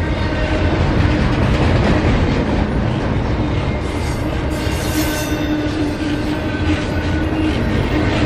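Double-stack intermodal freight train's well cars rolling past close by: a loud steady rumble of steel wheels on rail, with a thin steady whine riding over it.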